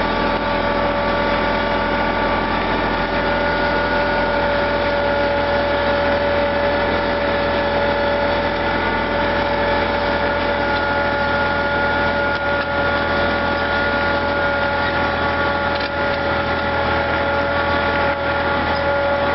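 Tractor engine running at a steady speed as it tows a plastic mulch layer along a raised bed, a constant drone with a high whine held on a few fixed tones.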